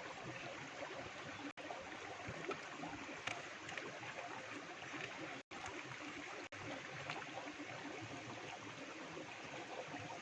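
Faint steady rushing hiss of background noise, like running water, broken by three very brief dropouts.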